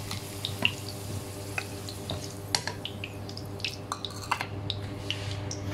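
Hot cooking oil sizzling in a frying pan, with scattered sharp crackles and pops, as fried potato chunks are lifted out with tongs.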